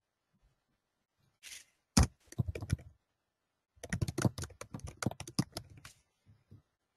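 Typing on a computer keyboard. There is a sharp click about two seconds in and a few scattered keystrokes, then a quick run of keystrokes lasting about two seconds.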